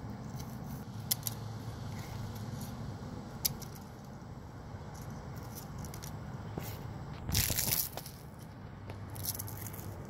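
Dry fallen leaves crackling as they are crushed on asphalt. There are a few small clicks early, then one longer crunch about seven seconds in and a lighter crackle near the end. A steady low hum runs underneath.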